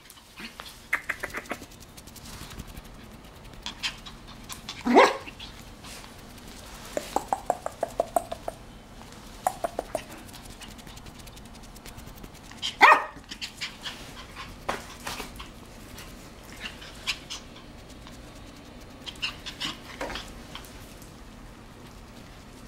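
Young papillon puppy barking in short, high yaps every few seconds, the two loudest about five and thirteen seconds in, with smaller yips and short clicks in between.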